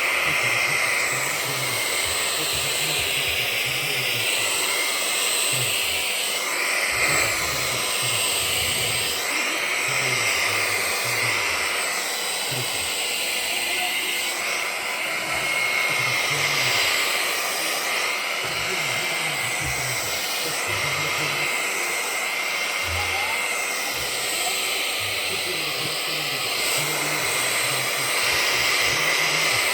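Vacuum cleaner running steadily while its nozzle is drawn through a cat's fur, the suction hiss rising and falling in pitch again and again as the nozzle moves, with irregular low bumps.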